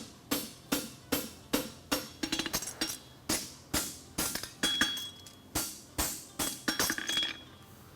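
Hammer striking an aluminum horseshoe bar on an anvil horn to bend it around. The blows come at a steady beat of roughly two to three ringing strikes a second, with a few quicker taps in places, and stop shortly before the end.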